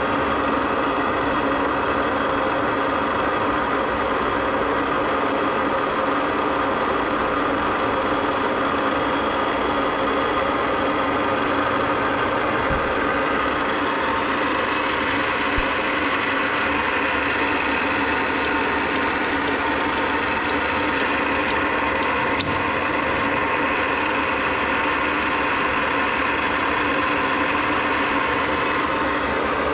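Millport Model 2S knee milling machine running, its 2 HP three-phase spindle motor and head giving a steady, even hum. A short series of light ticks comes partway through.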